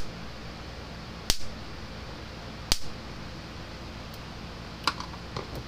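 Gallagher M1100 electric fence energizer pulsing through two screwdrivers bridged across its output terminals: two sharp spark snaps about a second and a half apart, each pulse arcing across the gap. The sparks show a nice hard shock from the repaired unit. A couple of lighter clicks come near the end.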